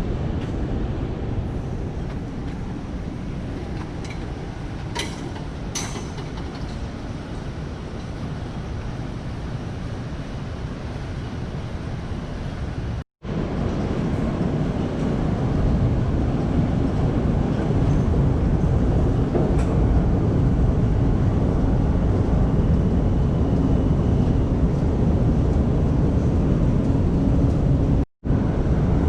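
Steady low rumble of the New York subway, train or station machinery, with a few sharp clicks about five to six seconds in; the rumble grows louder after about thirteen seconds.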